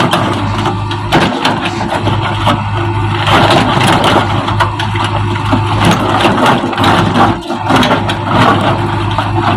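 JCB backhoe loader's diesel engine running steadily, with crunching and clattering of broken wall and debris as the machine tears it down.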